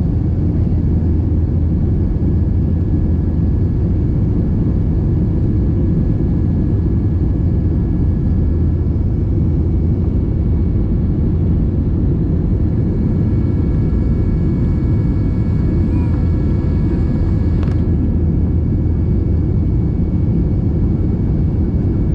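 Steady low rumble of a jet airliner's engines and rushing air heard inside the passenger cabin, with faint steady whining tones over it. A single brief click sounds about three-quarters of the way through.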